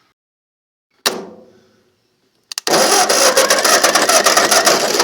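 About a second in, a single sharp knock rings on briefly. About two and a half seconds in, two quick clicks, then a 1951 Ford 8N's four-cylinder flathead engine is cranked over by its starter in a loud, fast, pulsing churn, an attempt to start an engine that has just been found to have no spark.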